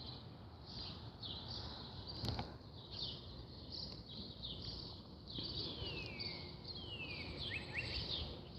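Small songbirds chirping repeatedly in short high notes, with a few downward-sliding whistled notes past the middle, over a steady outdoor hiss. A single sharp click about two seconds in.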